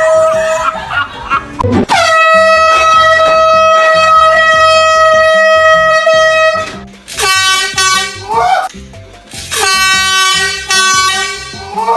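Air horn blasting. A short blast at the start is followed by one long, steady, loud blast of about five seconds, then two shorter, lower-pitched blares. Music plays underneath.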